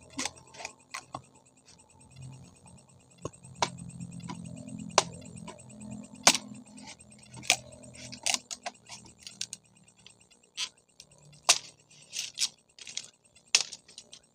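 A machete striking a wooden pole: sharp knocks at irregular intervals, one every half second to a second and a half.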